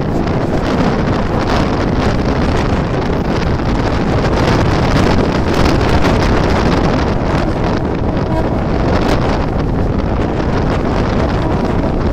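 Wind rushing past the open door of a Mumbai local electric train at speed and buffeting the microphone in steady gusts, over the continuous running noise of the train on the rails.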